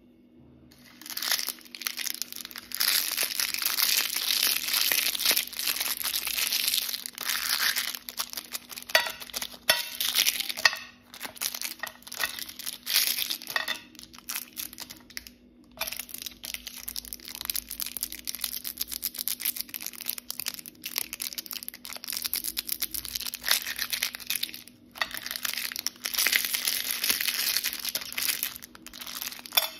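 Plastic candy and chewing-gum wrappers crinkling and crackling as fingers handle and squeeze them, in dense runs with a few short pauses.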